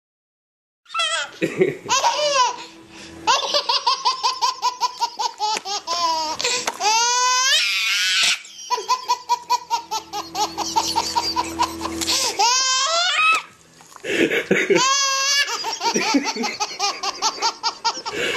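A baby laughing hard, starting about a second in: long runs of quick belly laughs, about five or six a second, broken now and then by high rising squeals.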